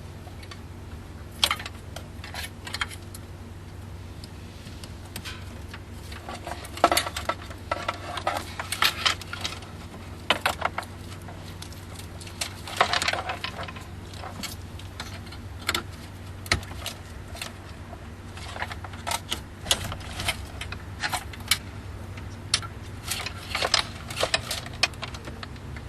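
Plastic wiring-harness connectors clicking and rattling as they are unplugged from the back of a car radio and snapped into a plug-in add-on harness. The sounds come as scattered sharp clicks and short clattering bursts over a steady low hum.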